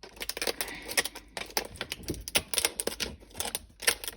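Stiff plastic clamshell packaging being worked open by hand, giving a rapid, irregular run of clicks and crackles.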